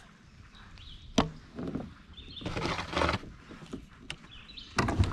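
Kayak paddle strokes in shallow water, with hard knocks: a sharp knock about a second in, swishing strokes in the middle, and a louder clatter of knocks near the end.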